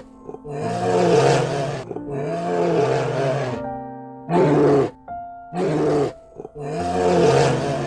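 Bear growling and roaring in five rough bursts, three longer and two short, over light background music.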